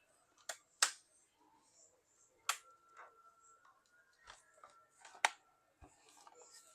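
Plastic back cover of an HP laptop being pressed shut clip by clip: a string of sharp, separate plastic clicks, the loudest about 1, 2.5 and 5 seconds in.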